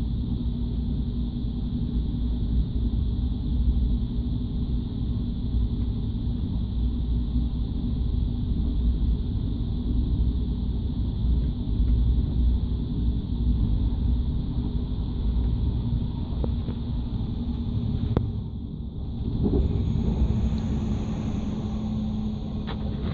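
TGV high-speed train running, heard from inside the carriage: a steady low rumble with a constant hum. The sound dips briefly about eighteen seconds in.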